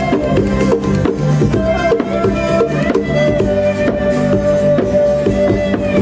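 Live band playing: strummed acoustic guitar with drums and percussion, and a long note held over them through most of the passage.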